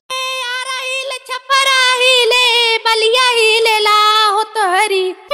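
A high-pitched, child-like voice singing long held notes with vibrato, with a short break about a second in.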